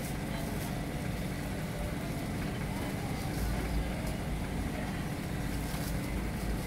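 An engine idling steadily nearby: an even low rumble with a steady hum.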